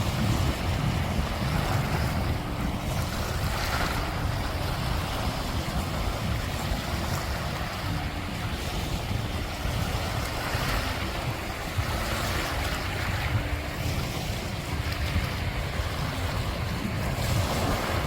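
Sea surf washing steadily on the shore, with wind buffeting the microphone in a low rumble.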